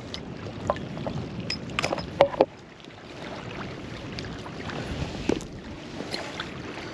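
Small waves lapping at the shoreline, with a few light clicks and taps, most of them in the first two and a half seconds, as a largemouth bass and a spinnerbait are handled at the water's edge.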